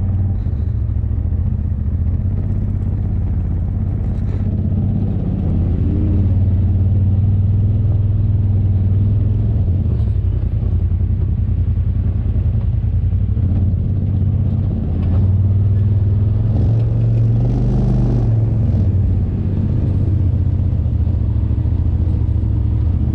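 Polaris RZR Turbo S side-by-side running along a dirt trail: a steady low engine drone with tyre and chassis rattle, the engine pulling a little harder about fifteen seconds in.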